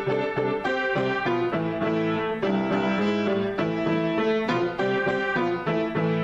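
Upright acoustic piano played in a busy two-handed improvisation: dense chords and quick runs of notes, with no breaks.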